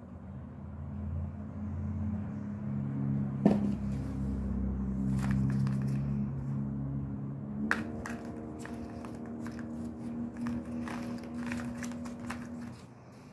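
Plastic Nescafé Dolce Gusto coffee capsules clicking and knocking against a table as they are picked up and set down: a few light knocks at first, then a quick string of them in the second half. Under them is a low steady drone of held tones that changes pitch about eight seconds in.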